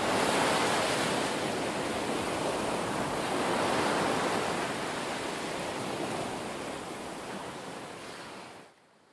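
Ocean surf: a steady wash of breaking waves that slowly eases down and drops away sharply near the end.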